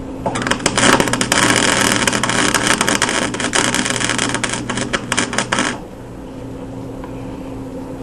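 Stick (arc) welder striking an arc and running a tack weld on steel for about five seconds: a loud, dense crackle full of sharp pops that cuts off suddenly, leaving a steady low hum.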